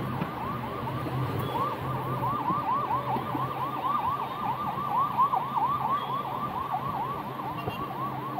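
Rapid warbling yelp siren of a passing emergency vehicle, a fast rising-and-falling sweep repeated about four to five times a second. It grows louder toward the middle and fades near the end.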